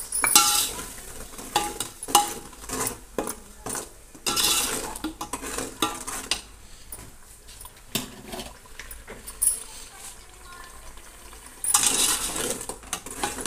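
Steel ladle scraping and clinking against the sides and bottom of a metal pot as a thick onion-tomato masala paste is stirred while it fries. The strokes come irregularly, with louder bouts about half a second in, around four seconds in, and near the end.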